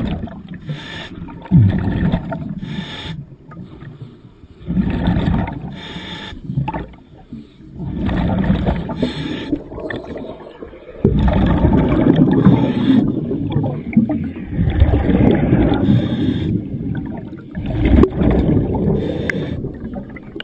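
Air bubbling and gurgling underwater in repeated bursts every few seconds, heard through an underwater camera, with air bubbles rising around a diver working on a mooring chain.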